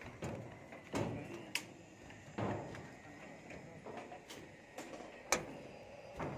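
Footsteps walking across roof-slab shuttering: uneven thuds about one a second, with a few sharp clicks in between.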